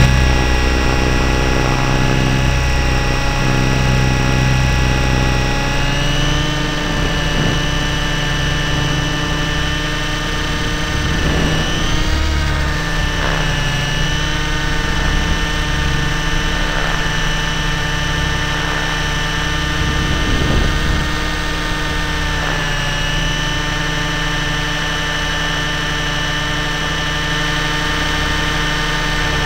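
Motor and propeller of a radio-controlled model plane heard from a camera on board in flight: a steady whine of several pitches that shifts slightly a few times, over a low fluttering rumble.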